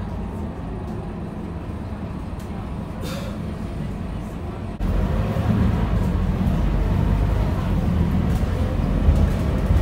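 Scania K230UB bus's diesel engine and drivetrain running, heard from inside the passenger cabin while driving. About five seconds in the engine suddenly grows louder and its pitch climbs as the bus accelerates. A brief hiss comes about three seconds in.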